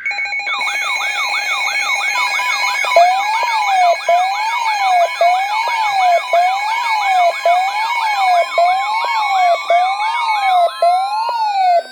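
Synthesized electronic siren tones sounding as an emergency-alert attention signal. Several tones are layered at once: a fast warble, a slower hi-lo sweep about once a second and steady high tones. Near the end a tone rises in pitch.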